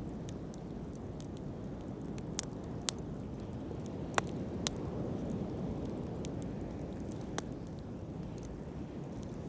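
Wood fire burning with a steady low rush, broken by sharp crackles and pops every second or so, a few of them louder.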